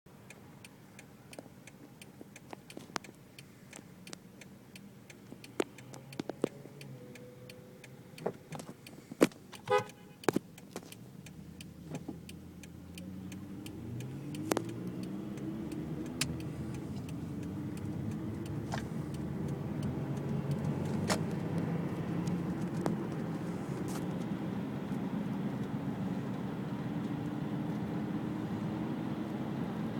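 Scattered clicks while a car sits at the lights, then a short car-horn toot about ten seconds in. A car engine then accelerates away, its pitch rising in several stepped glides through the gears and growing steadily louder.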